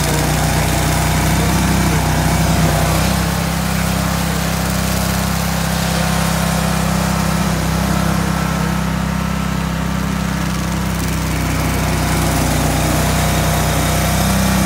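Stump grinder's gasoline engine running steadily.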